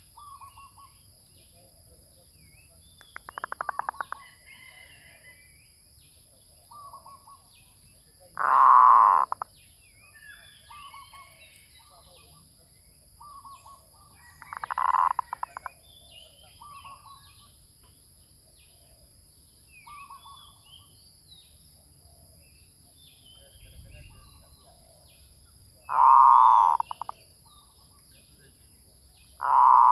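Zebra dove (merbuk) calling: four loud, rapidly pulsed cooing phrases about a second long, several seconds apart, with softer short coos between them. Other small birds chirp faintly in the background.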